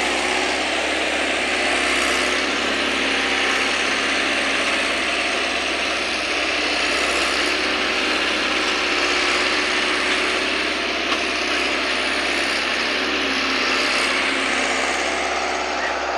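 Cameco SP1800 sugarcane loader running steadily as it works its boom and grab, a continuous mechanical engine noise.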